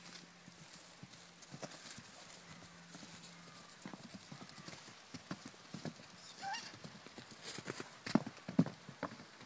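Hooves of young foals trotting and bucking over grass and sand, an uneven scatter of soft thuds, with the loudest hoof strikes close by about eight seconds in.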